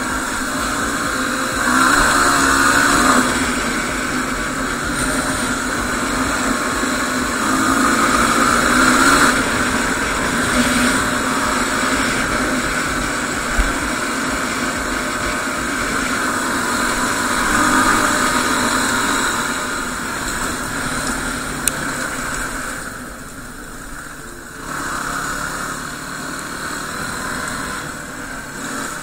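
Yamaha WR250R's 250 cc single-cylinder four-stroke engine running on a ride, swelling and easing with the throttle several times and dropping quieter for a couple of seconds about three-quarters of the way through.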